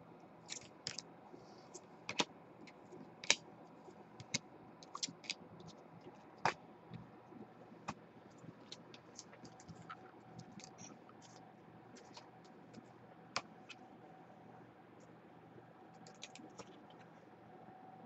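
Scattered light clicks of typing on a computer keyboard, in irregular runs and single taps.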